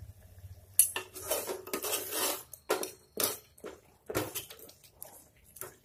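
Long-handled steel ladle scraping and knocking against the sides and bottom of an aluminium pressure cooker while stirring a wet tomato masala that has just had water added. Irregular scrapes and clanks begin about a second in and repeat every half second to a second.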